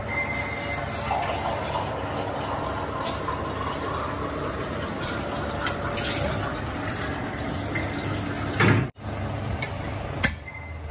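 Steady hiss from a steel pot of hot oil on a gas stove, then a loud thump about nine seconds in. Near the end, water trickles from a steel tumbler into gram flour for bajji batter.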